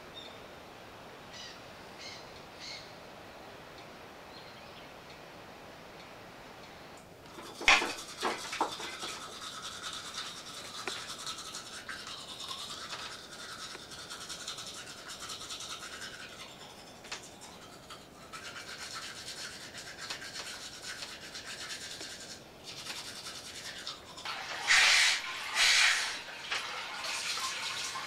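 A toothbrush scrubbing teeth in a steady scratchy rubbing, starting after a knock about a quarter of the way in and running on for over fifteen seconds. Faint bird chirps are heard a few times before it, and near the end there are two loud short bursts as the brusher bends over the sink.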